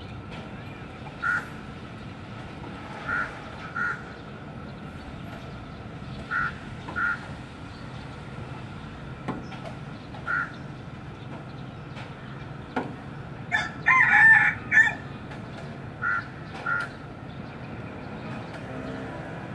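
A rooster crows once, loudly, about two-thirds of the way through. Before and after the crow come short single calls every few seconds, mostly in pairs, over a faint steady hum.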